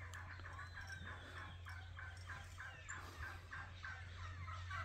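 Faint, distant farm poultry calling: a steady run of short repeated notes, several a second.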